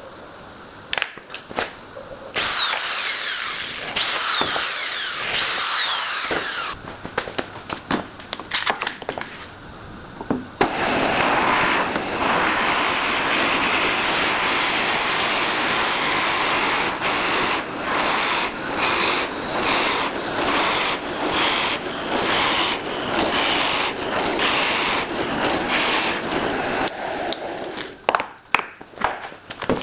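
Power tool working wood in two stretches, a short one of about four seconds and then a long one of about seventeen, with knocks and clicks of handling between and after.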